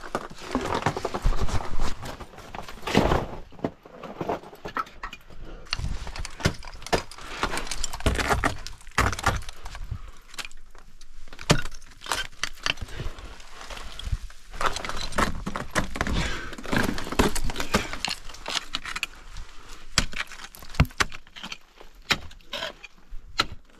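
Ice-climbing hardware clinking and knocking in irregular clusters of sharp strikes, with metal jangling.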